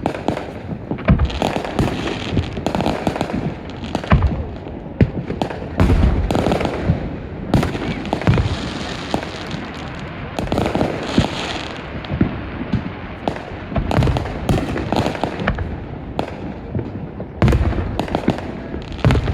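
Fireworks going off without pause: deep booms of bursting shells mixed with many sharp bangs and firecracker-like crackling, several a second at times.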